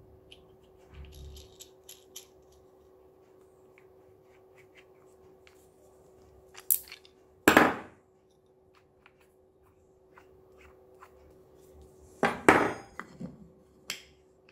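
Small metal hardware being handled by hand: light clicks as a hex nut goes onto an M6 bolt, then a few sharp metal clacks of a ring spanner and the bolt knocking on wood, loudest about halfway and again near the end.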